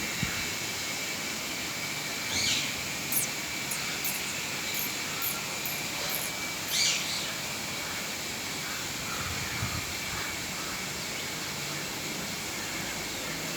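Two short, harsh bird calls, about two and a half seconds in and again about seven seconds in, with a run of about six faint, very high chirps between them, over a steady outdoor hiss.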